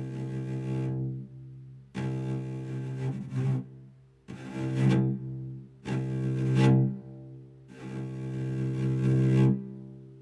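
Electronic keyboard playing a sampled bowed-cello sound: a series of long notes on the same low pitch, each swelling in and fading away. The volume and tone of each note are shaped by the emulated bow speed.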